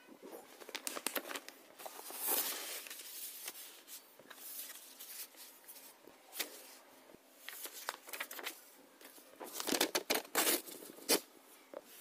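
Paper being handled: sheets of colour paper and notebook pages rustling and scraping, with irregular sharp clicks and taps. The loudest rustling bursts come about two seconds in and again around ten seconds.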